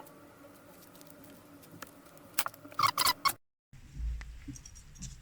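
A few sharp little clicks and taps from handling small resistors and their wire leads on a circuit board, clustered about three seconds in, over a faint steady hum. Just after a brief dead-silent gap there is a dull low thump.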